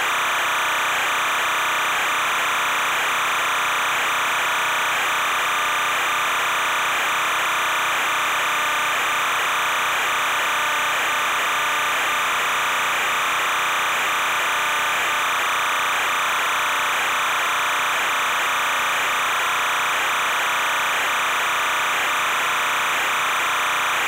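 Steady, unchanging hiss with a constant high-pitched hum running through it.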